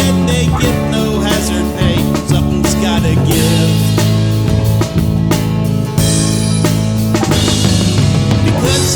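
Instrumental break of a rock song: a drum kit with bass drum and snare under held chords, with cymbals crashing in from about three seconds in.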